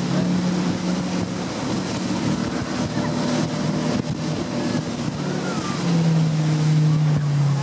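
Towing motorboat's engine running steadily at speed, with rushing water and wind on the microphone. About six seconds in, the engine gets louder and its pitch drops slightly.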